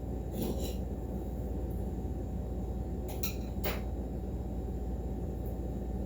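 Steady background hum, with a few short rustles and clicks about half a second in and again just past three seconds.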